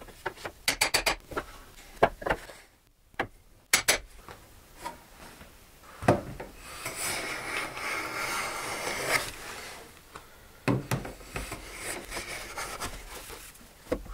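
A hand plane shaving a walnut board on a wooden workbench: first a series of sharp knocks and clicks as the board is set against the planing stop, then one long hissing plane stroke of about three seconds, followed by shorter strokes and knocks.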